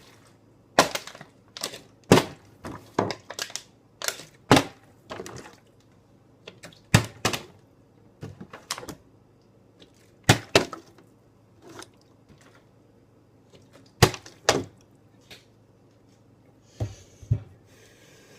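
A ball thrown and bouncing off hard surfaces in repeated trick-shot attempts: sharp knocks, often a quick pair of bounces, coming every second or so and growing sparser toward the end.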